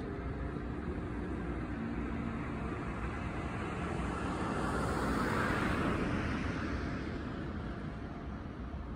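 A road vehicle passing by: its tyre and engine noise swells to a peak about five to six seconds in, then fades away.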